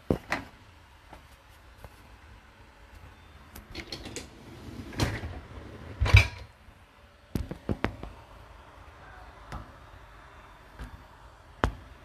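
Crockery and the racks of a Whirlpool dishwasher being handled: a scattered run of knocks and clinks, the loudest about six seconds in, with the racks sliding on their runners.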